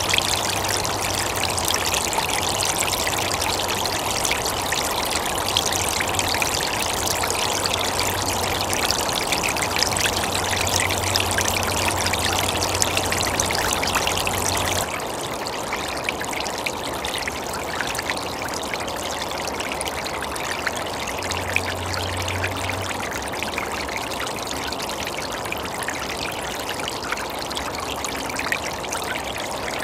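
Small ice-covered stream running and trickling steadily. About halfway through, the recording switches from the Nikon D800's internal microphone to a Rode Stereo VideoMic Pro: the water gets a little quieter and a low hum underneath it mostly disappears.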